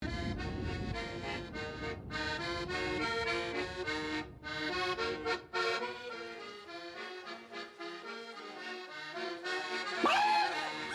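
Accordion-led film score music playing sustained chords that change every half second or so. About ten seconds in, a louder short sound rises sharply in pitch and arches back down over the music.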